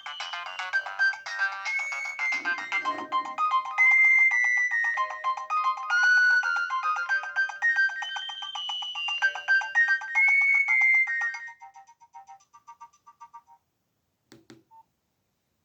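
Polyphonic ringtone melody playing from a Nokia 1680 classic's small loudspeaker. It is thin-sounding with no low notes, and stops about three-quarters of the way through with a short fading tail. A single short click comes near the end.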